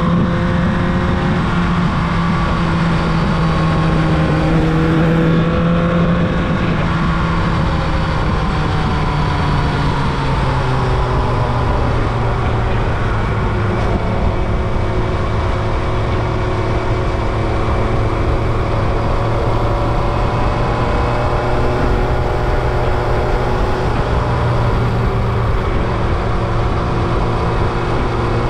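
Carburetted 2000 Yamaha YZF-R1's inline-four engine running under way at steady throttle over a constant rush of noise. Its pitch eases down between about six and ten seconds in, then holds fairly even.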